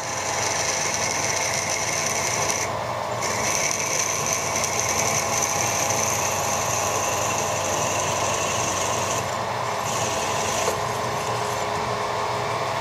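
Milling machine spindle running steadily while a twist drill cuts down into a steel bar, with a mist coolant spray hissing at the drill; the hiss drops out briefly about three seconds in and again for about a second and a half around the ten-second mark.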